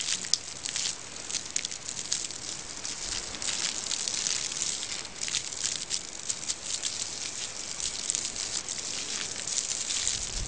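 Water spraying and pattering onto a lawn: a steady hiss full of small crackling ticks.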